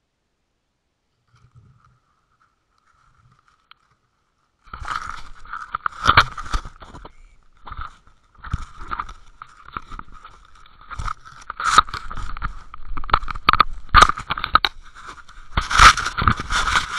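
Handling noise on a Water Wolf UW 2.0 underwater camera's housing, picked up by the camera's own microphone. Nearly silent at first; from about five seconds in come irregular scraping and rubbing with sharp knocks as the housing rubs against a landing net's mesh and is handled, loudest near the end.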